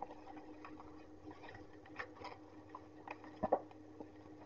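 Plastic parcel wrapping crinkling and rustling as it is handled, with scattered small crackles and a louder crackle about three and a half seconds in.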